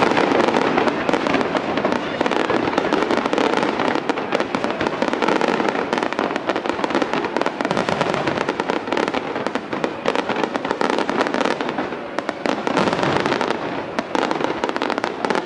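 Fireworks going off in a dense, continuous crackle of many small rapid bursts, with no single large bang standing out.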